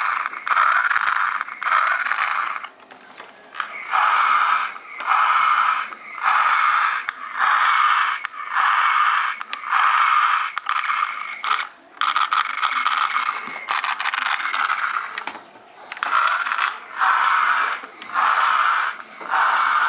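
Mars Attacks Doom Saucer toy's electronic sound effect playing through its small speaker: harsh, raspy pulses that repeat about once a second, with a few short breaks.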